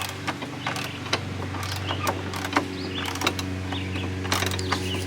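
Scattered metal clicks and knocks from work on a spring-loaded gate caster wheel, over a steady low mechanical hum, with small birds chirping.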